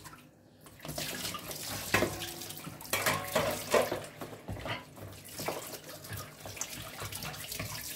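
Water running, with a few light knocks and clinks over it. It starts about a second in.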